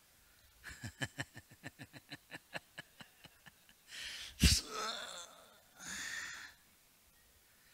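A man's breathy chuckle into a close microphone, quick pulses that fade away. It is followed a little past the middle by a thump on the microphone and a short breath out.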